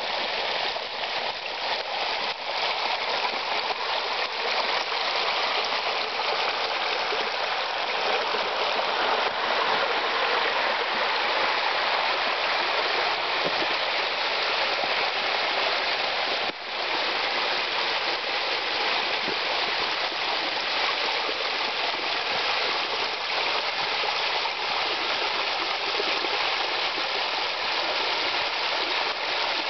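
Small stream waterfalls pouring over stepped, layered rock into shallow pools: a steady rush and splash of falling water.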